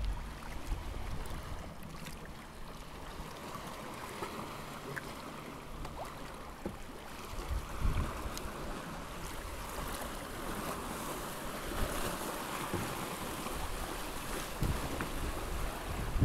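Small sea waves washing and splashing against a rocky shoreline, with wind noise on the microphone: a steady wash of water broken by a few brief splashes.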